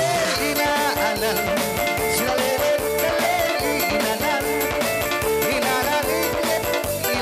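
Bajau–Suluk igal dance music played by a band: a steady, busy drum beat with a wavering melody line over it.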